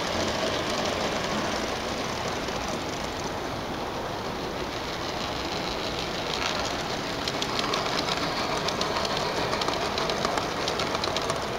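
G-scale model train running past on the layout's track, rolling steadily. In the second half its wheels set up a run of quick clicks that grow a little louder as the locomotive draws near.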